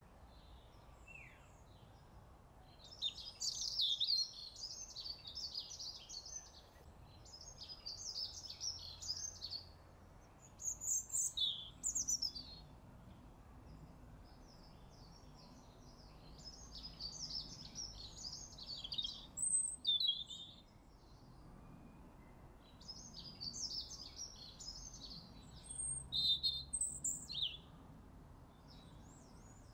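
Songbird singing in repeated phrases of rapid high chirps and trills, each one to several seconds long with short pauses between, over a faint steady background hum.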